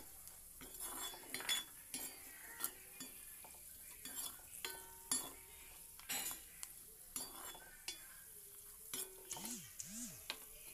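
Steel ladle scraping and clinking against a metal kadai while cashew nuts are stirred as they fry. Irregular strokes, some with a short metallic ring, over a faint sizzle.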